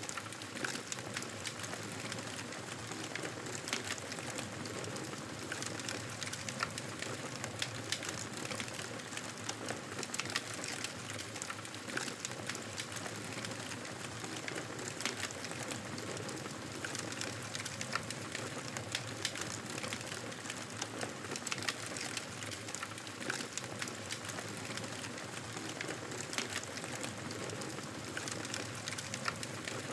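Wood fire burning, a steady crackle with frequent sharp pops and snaps.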